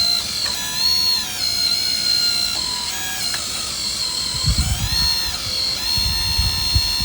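Hydraulic oil pump of a model excavator running with a steady high whine that rises in pitch briefly twice as load comes on. Low knocks start near the end.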